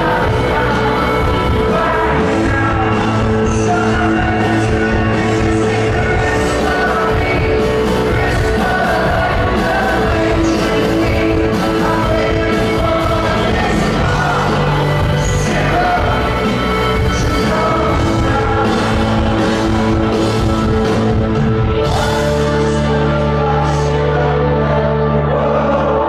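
A live rock band playing with a lead singer, with drums, guitars and bass. From about 22 seconds in, a heavier sustained bass note enters.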